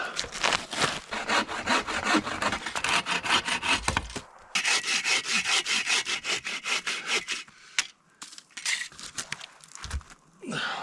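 Hand saw cutting through wood in quick back-and-forth strokes, with a short pause about four seconds in and a few scattered strokes near the end.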